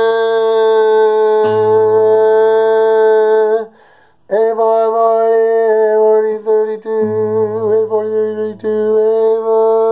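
A man's voice holding a long, steady sung A as a tuning reference, stopping for a breath about four seconds in and then holding it again with a slight waver. Under it the classical guitar's A strings ring in lower octaves.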